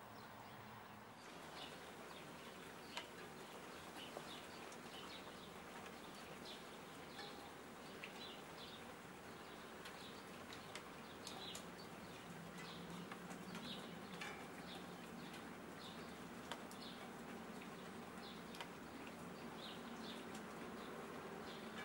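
Steady light rain, with birds chirping now and then through it and an occasional sharp tick.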